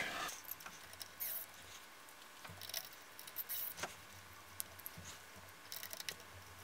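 Faint scattered clicks and scratches of a screwdriver turning small screws and metal parts shifting as a hot end is fastened to a 3D printer's metal carriage plate.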